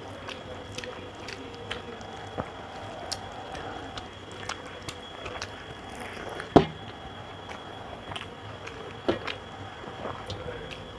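Close-up eating sounds: fingers mashing rice and duck egg curry on a steel plate, and wet chewing, with many small clicks and smacks. Two louder sharp clicks stand out, one a little past halfway and one about nine seconds in.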